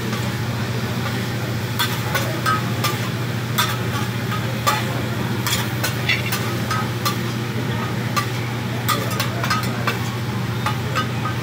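Metal spatulas clicking and scraping on a hibachi griddle as the cook stirs and chops food, with the food sizzling. A steady low hum runs underneath.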